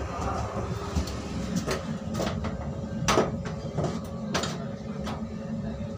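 Inside a moving Indian Railways passenger coach: the steady low rumble of the running train, with a series of sharp knocks and rattles about every half second to second.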